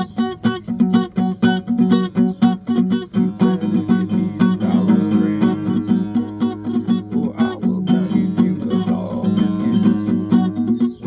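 Acoustic guitar played by hand: quick, evenly repeated plucked notes for the first few seconds, then longer ringing notes with some sliding pitch.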